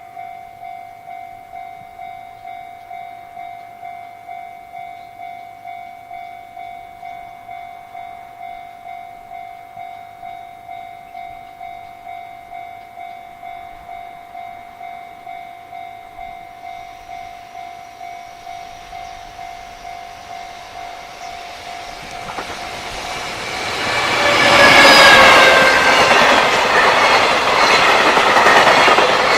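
Japanese level-crossing warning bell ringing its steady electronic strokes, about one and a half a second. About 22 seconds in, a JR Freight train comes up and passes loudly with wheel and rail noise that drowns the bell.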